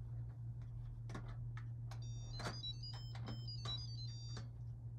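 Instant Pot electric pressure cooker playing a short electronic chime tune, which seems to play twice, about two seconds in, while its lid is twisted open with a series of plastic clicks and knocks.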